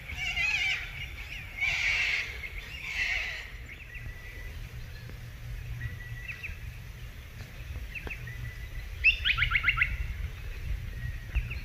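Birds calling in a morning chorus: warbling phrases over the first few seconds, then a few thin whistled notes, then a quick run of about seven sharp notes later on.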